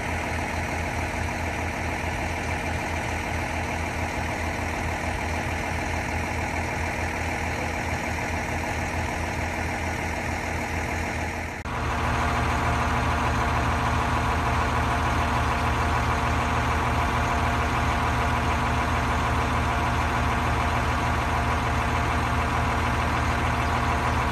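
Kenworth dump truck's diesel engine idling steadily with an even low throb, heard close by; it gets a little louder after a cut about twelve seconds in.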